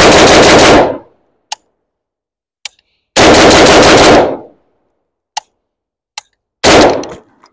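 Yugo M70 AK-pattern rifle in 7.62x39 fired close by in three rapid strings of shots, each about a second long and roughly three seconds apart, the last string shorter. The shots are very loud.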